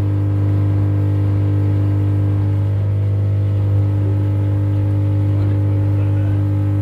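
Loud, steady electrical hum from a faulty Penza LX12 audio mixer played through its speaker. It comes while the mixer is smoking after its USB/mic switch was pressed.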